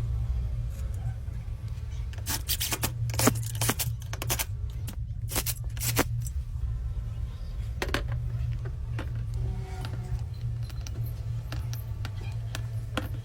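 Scattered scrapes and clicks, in a cluster a couple of seconds in and then singly, over a steady low hum.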